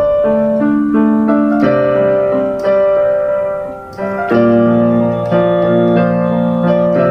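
Background music: piano or electric piano playing slow held chords.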